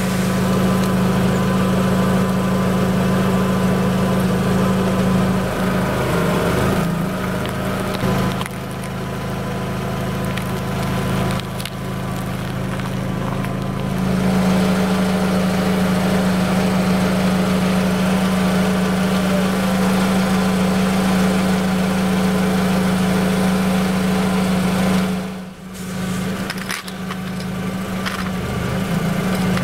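Car engine idling with a steady low hum, close at ground level by the wheel, with a few sharp cracks and crunches as things are crushed under the tyre.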